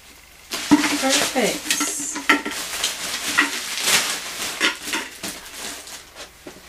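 Hard plastic display tubes clicking and knocking together as they are handled and set down, with the crinkle of the plastic bag wrapping around them.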